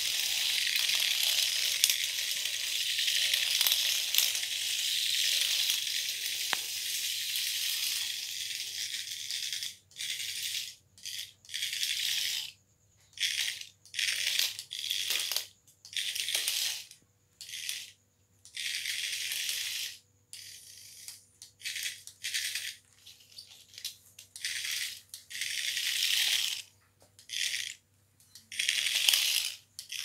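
Remote-control toy snake buzzing and rattling as it slithers across a tile floor. It runs steadily for about the first ten seconds, then comes in short bursts of a second or so as it is started and stopped.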